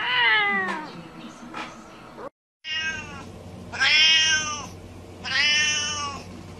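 A cat meows once, rising then falling in pitch. After a brief break it meows three more times: one short meow, then two long drawn-out ones.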